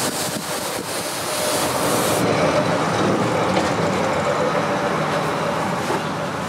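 Spring-steel sword blade held in a water trough: a loud hiss that cuts off about two seconds in, then a steady rushing noise.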